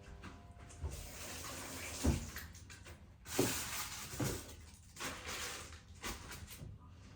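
Kitchen tap running into a sink, with a few knocks of things being handled in it.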